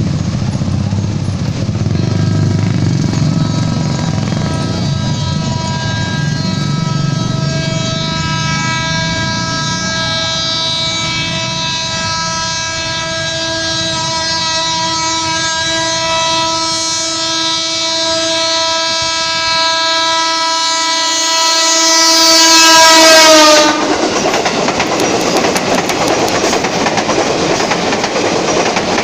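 JR 205-series KRL electric commuter train sounding its long warning horn (Indonesian railway signal 35, the long blast) as it approaches the level crossing. The horn is one steady multi-note tone lasting about fifteen seconds and growing louder; its pitch drops as the train reaches the crossing and it cuts off suddenly. The train then runs past with a steady rumble and wheel clatter.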